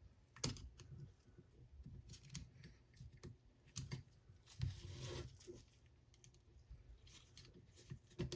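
Faint, irregular clicks and light scraping of small steel parts being handled: an AR-15 bolt carrier group being worked by hand as the bolt cam pin is turned and worked loose.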